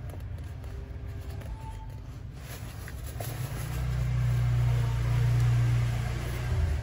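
Nylon jacket fabric rustling as a tape measure is shifted across it, over a low rumble that swells about halfway through and drops off just before the end.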